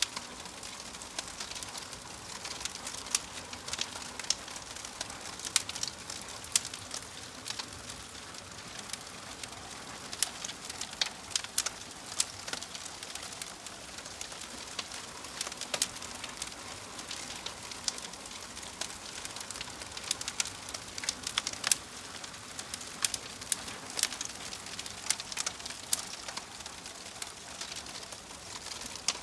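Burning logs in a fireplace crackling: a steady hiss with frequent sharp pops and snaps, coming thicker in some stretches than others.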